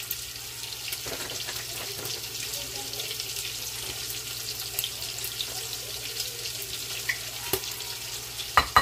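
Bacon sizzling as it pan-sears in the pot of a Ninja Foodi Possible Cooker Pro: a steady hiss full of small crackles and pops. A couple of sharp knocks come near the end.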